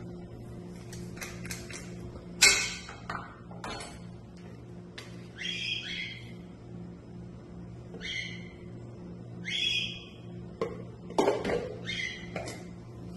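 Short, high animal calls repeated every second or two, with a few sharp knocks in between and a steady low hum underneath.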